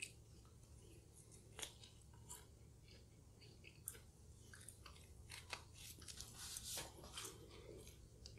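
Faint chewing and biting of a stuffed pizza crust: soft, scattered crunchy clicks of the mouth, more frequent in the second half.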